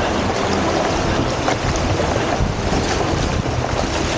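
Shallow river rapids rushing and splashing steadily over rocks, with wind buffeting the microphone.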